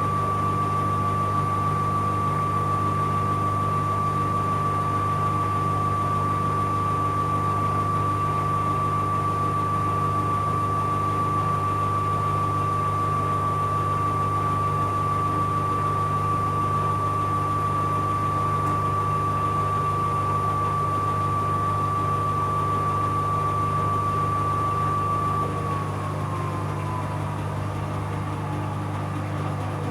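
Bauknecht Super Eco 7615 washing machine spinning, its inverter motor giving a steady high whine over a low drum hum. About 25 seconds in the whine begins falling steadily in pitch as the drum slows down.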